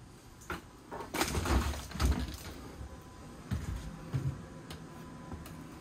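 A run of sharp knocks and clattering thuds, loudest a little after one second in and again at about two seconds, with a few lighter knocks later, over a faint steady hum.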